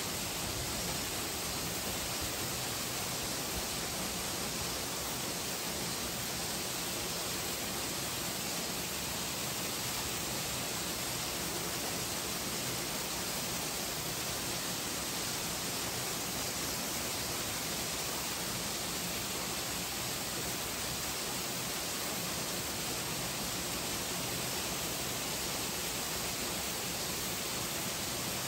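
Steady, even hiss-like rushing noise with no distinct events.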